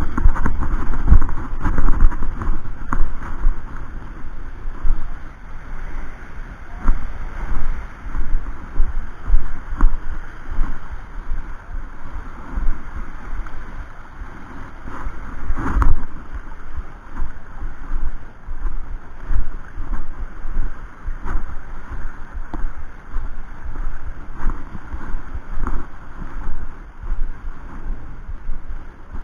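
Wind buffeting an action camera's microphone: a loud, gusty low rumble that swells and drops every second or two.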